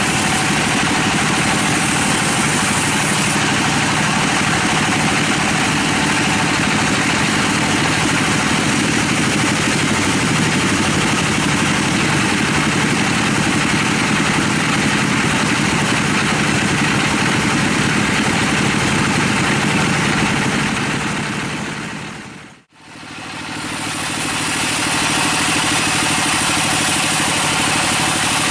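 Band sawmill running steadily, its blade cutting through teak wood. The sound fades out to near silence for a moment about three-quarters of the way through, then comes back at the same level.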